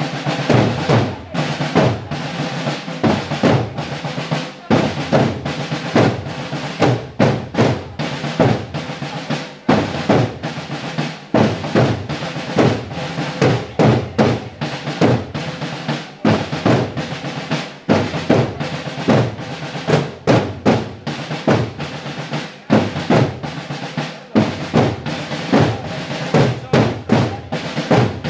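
A group of marching drums, snare and bass, playing a rhythmic cadence of dense, steady strikes.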